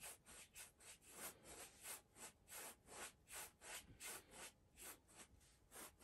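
Paintbrush working oil paint in short, even rubbing strokes, about three a second, faint.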